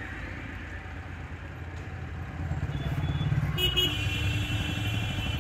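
Vehicle engine running close by in street traffic. A little past halfway a vehicle horn sounds and is held for nearly two seconds.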